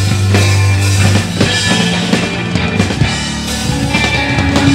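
Instrumental psychedelic rock from a trio of drum kit, bass guitar and effects-laden guitar. The bass holds a low note for about the first second, under steady drum hits and sustained guitar tones.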